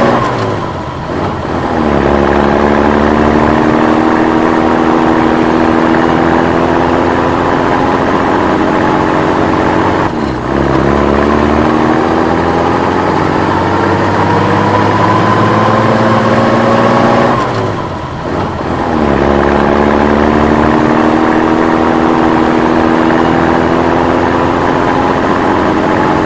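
Old military truck engine pulling through the gears: engine pitch climbs slowly under load, then drops with a brief dip in loudness at each gear change, three shifts about eight seconds apart.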